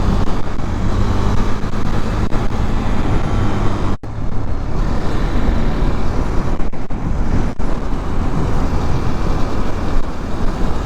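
Motorcycle engine running while under way, mixed with steady wind and road noise. There is a brief dropout about four seconds in.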